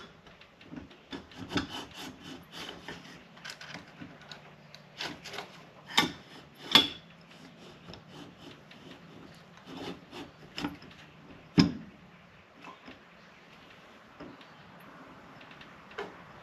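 Motorcycle fork parts being handled and fitted together: scraping and rubbing, with a few sharp metal knocks, the loudest about six, seven and eleven and a half seconds in.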